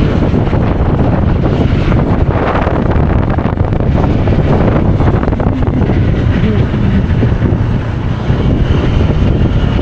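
Wind rushing and buffeting over a helmet-mounted microphone while riding a motorbike at speed, with engine and road noise underneath, steady throughout.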